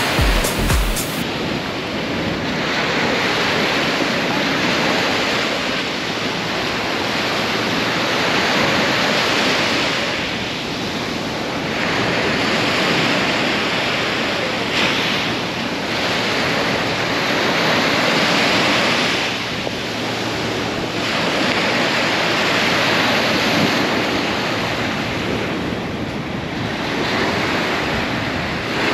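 Waves surging and breaking, with wind buffeting the microphone. The rushing noise swells and eases every few seconds.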